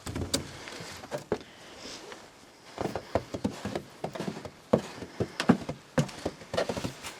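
Irregular knocks, clunks and scuffs of objects being handled and set down, with footsteps, growing busier about three seconds in.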